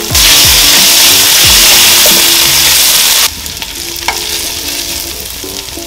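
Ginger-garlic paste sizzling loudly in hot oil with fried mint and coriander leaves as it is lightly roasted. About three seconds in the sizzle drops abruptly to a quieter frying hiss while it is stirred with a spatula.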